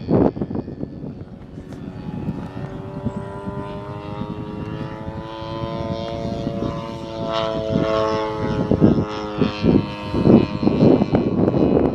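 One-third scale Waco YMF5 radio-controlled biplane's engine and propeller droning overhead, the pitch rising gently to a peak about seven to eight seconds in and then dropping as the model passes. Wind rumbles on the microphone at the start and again about ten seconds in.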